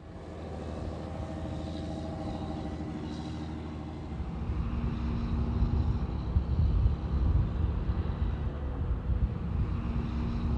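John Deere tractor engine running steadily. About four seconds in it gets louder, with a heavier, uneven low rumble.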